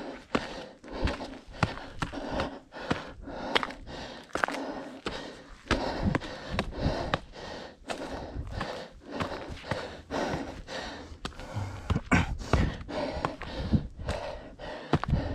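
A trail runner's footfalls on a mountain trail in a steady rhythm, with heavy, close panting from the runner's exertion on the climb, picked up by a chest-mounted camera.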